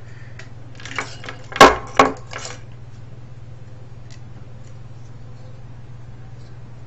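A few sharp knocks and a short clatter of hard plastic and metal parts being handled while a cassette recorder is pulled apart, the loudest knock about a second and a half in, then a steady low hum with a few faint ticks.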